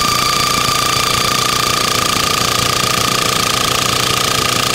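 Petrol picket driver running steadily with a fast hammering, driving a 2.2 m steel fence end post into the ground; the big post pushes the machine to the limit of its performance.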